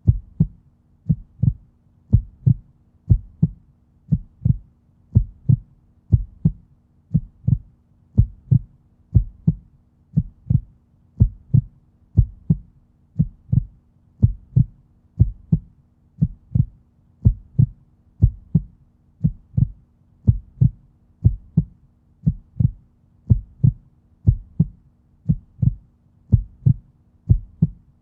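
Human heartbeat: a steady, even rhythm of paired low lub-dub thumps, over a faint steady hum.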